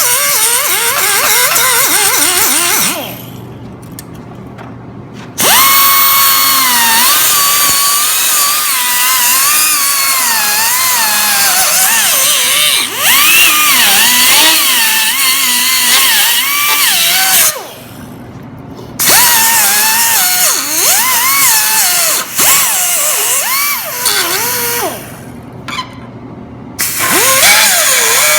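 Angle grinder cutting a V-groove along a crack in a steel mower frame to prepare it for welding, its whine wavering in pitch as the wheel bites. It cuts off and starts up again three times.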